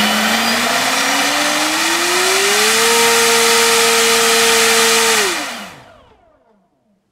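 NTM Propdrive 3842 1300 kV brushless motor spinning an APC 8x10 gas propeller on a 4-cell LiPo, run up on a thrust stand: a loud prop buzz with a motor whine that rises steadily as the throttle comes up, holds at full throttle for about two and a half seconds, then falls away as it spins down and stops about six seconds in. The high-pitch 8x10 prop sounds distinctly different and loads the motor heavily, drawing much more current.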